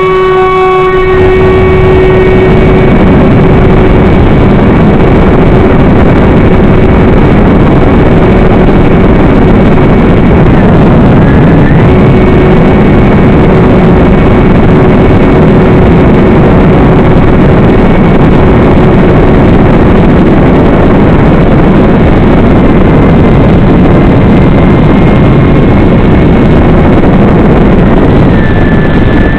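Electric motor and propeller of a small FPV model aircraft running at a steady, high, whining pitch under heavy wind rush. The note dips briefly about ten seconds in and again near the end.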